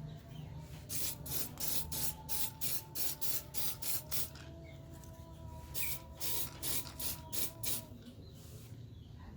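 Sandpaper being rubbed by hand over a 3D-printed plastic prop part, in quick back-and-forth strokes of about three a second. There are two runs of strokes with a short pause between them.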